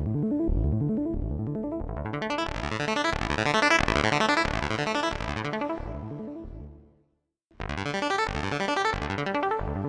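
Modular synthesizer playing a fast sequence of repeating notes over a pulsing bass. The tone brightens towards the middle, then fades out to a brief silence about seven seconds in, and a new sequence starts abruptly.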